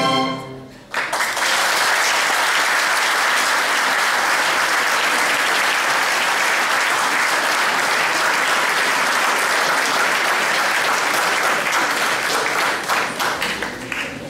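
A chamber string orchestra's final chord dies away, then the audience applauds from about a second in; the applause thins to scattered claps near the end.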